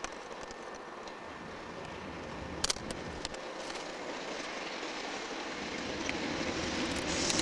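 British Rail Class 37 diesel locomotive, with its English Electric V12 engine, hauling a freight train of tank wagons as it approaches, the sound slowly growing louder. A couple of sharp clicks come about two and a half seconds in.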